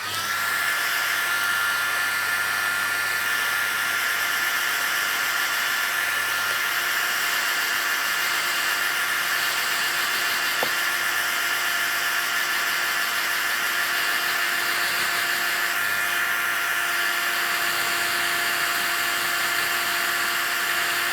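Hairdryer on its medium speed and heat setting, its whine rising briefly as it spins up, then running steadily with a high motor whine over the rush of air until it cuts off.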